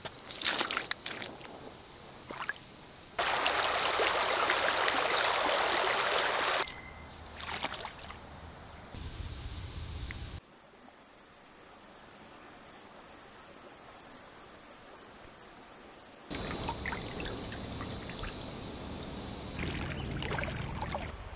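Shallow creek water: boots stepping through the water, a few seconds of loud splashing, and a steady stream trickling. Through the quieter middle stretch a high chirp repeats.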